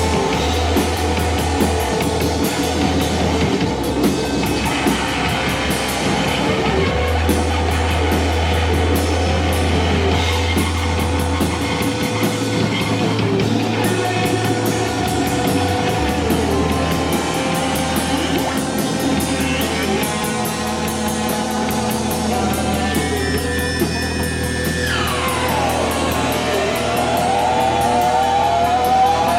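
Live rock band playing an instrumental passage with a steady drum kit, bass and electric guitar. Near the end a high sliding note falls steeply in pitch.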